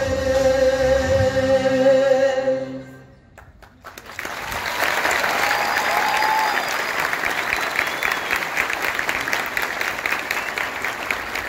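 Music with singing fades out over the first three seconds. From about four seconds in, a hall audience applauds steadily, with a short cheer near six seconds.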